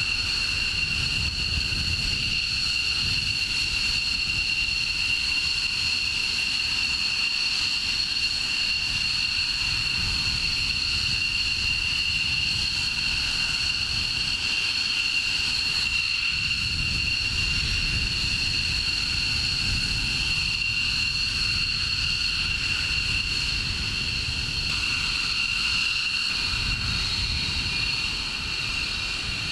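F-22A Raptor jet engines idling: a steady high-pitched whine with two strong tones over a low rumble.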